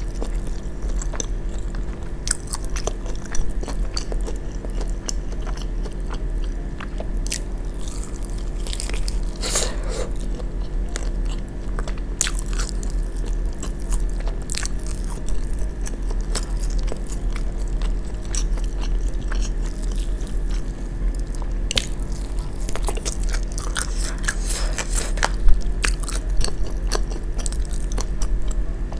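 Close-up eating sounds: biting into and chewing fried, sauce-coated chicken wings, with many small crunchy, wet clicks and two louder bites, about 3 and 25 seconds in, over a steady low hum.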